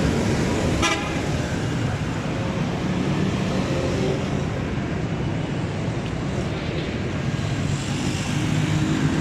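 Road traffic running steadily, with a short vehicle horn toot about a second in.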